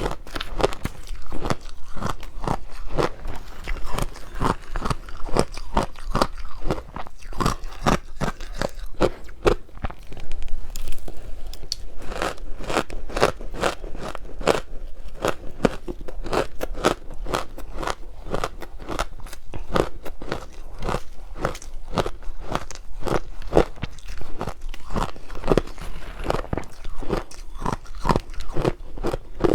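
Close-up crunching of powdery frozen ice dusted with matcha powder being bitten and chewed, several crisp crunches a second, with a briefer softer spell of chewing partway through.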